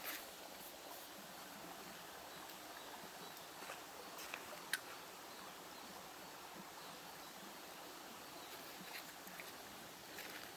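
Creek water running with a faint, steady rush, with a few small clicks scattered through it and one sharper click near the middle.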